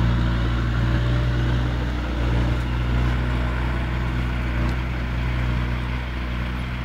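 Diesel engine of a Welte log forwarder running steadily, a low drone that gets gradually a little quieter.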